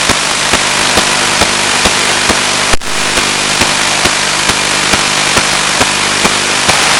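Steady radio hiss and hum from an analog 1.3 GHz FPV video receiver's audio channel, with faint regular ticks about two a second. A sharp click comes a little under three seconds in.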